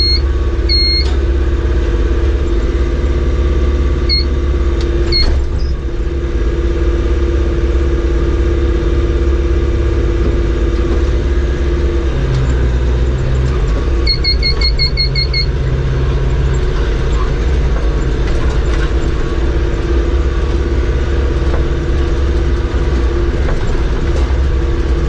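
Tractor engine running steadily while baling hay, a continuous deep rumble with a steady hum. Short electronic beeps sound at the start and again about four and five seconds in, then a quick run of about six beeps near the middle.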